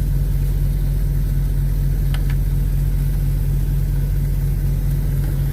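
A semi-truck's diesel engine idling with a steady, unchanging low drone, heard from inside the cab. A faint tick comes about two seconds in.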